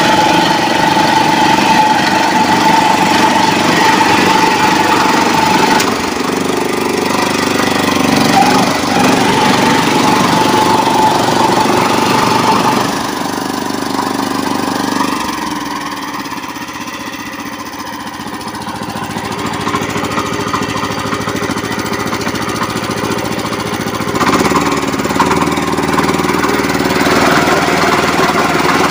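Small single-cylinder air-cooled petrol engine of a walk-behind power tiller running under load as its rotary blades churn through wet clay mud. It runs quieter for a stretch in the middle, then picks up again.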